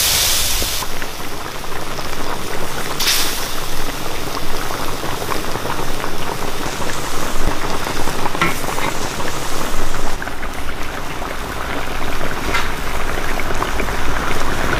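Fish and tofu stew boiling hard in a large wok over a strong fire: a dense, steady bubbling, with two brief louder bursts, one at the start and one about three seconds in.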